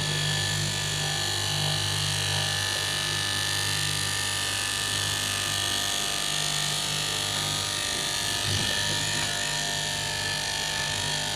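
KM electric straight-knife cloth cutting machine running steadily, its motor humming as the blade cuts through layered fabric. The hum drops out briefly about eight seconds in, then picks up again.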